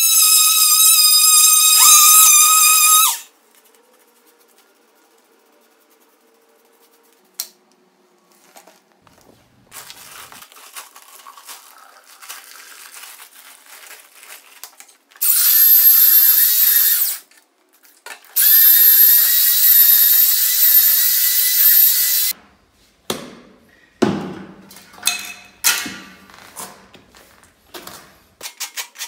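Cordless oscillating multi-tool running with a steady high whine as it scrapes old tile adhesive off a concrete floor, stopping after about three seconds. Later, a paddle mixer drill whines in two runs as it mixes tile adhesive in a plastic bucket. Near the end, a notched trowel makes repeated scraping strokes as it spreads the adhesive on the floor.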